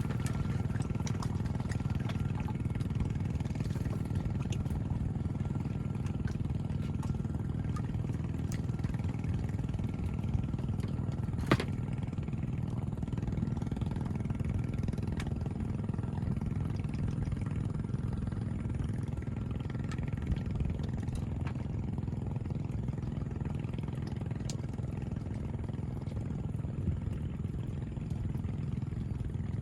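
A motor engine running steadily as a low rumble, with one sharp click about eleven and a half seconds in.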